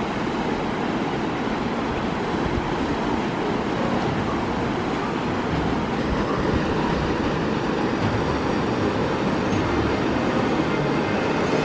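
Waterfall: falling water rushing in a steady, unbroken noise.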